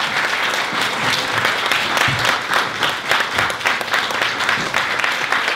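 Audience applauding steadily, many hands clapping at once in a dense, even patter.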